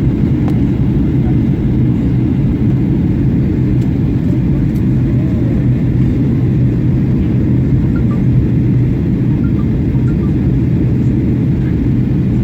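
Steady cabin noise of a Boeing 737-800 descending toward landing: a low engine and airflow rumble with a steady hum, heard from inside the passenger cabin.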